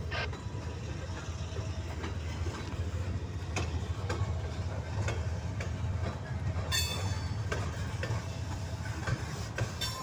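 Freight train cars rolling past: a steady low rumble with occasional clicks of the wheels over the rail joints, and a brief high squeal about seven seconds in.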